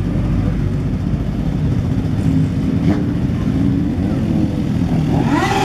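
Several motorcycle engines running as the bikes ride slowly past in a parade, with one engine revving up near the end.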